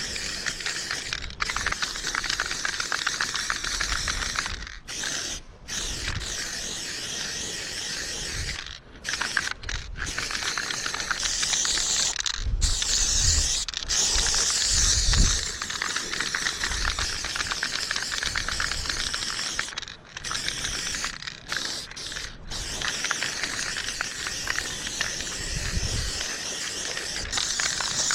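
Aerosol spray-paint can spraying in long hissing bursts, with the nozzle let go for a moment several times.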